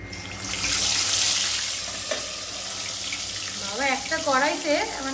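Chitol fish belly pieces, rubbed with salt and turmeric, going into hot oil in a kadai: a loud sizzle that starts suddenly, peaks about a second in and then settles to a steady fry.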